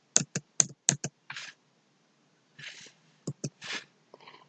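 Computer keyboard keys being pressed as text is deleted: about five sharp, separate clicks in the first second, then a few softer taps and brief rustles.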